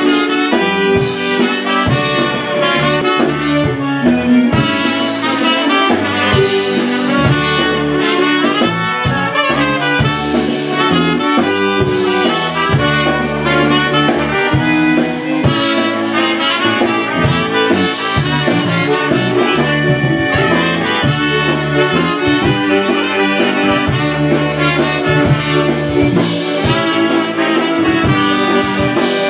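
Live polka band playing an instrumental passage with no singing: two trumpets lead the tune over electric bass, a Slingerland drum kit, piano accordion and concertina, with a steady beat.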